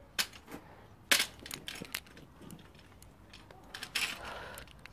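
Metal clinks and knocks of a car scissor jack and its crank rod being handled and set in place, with the loudest knock about a second in and a scraping rustle near the end.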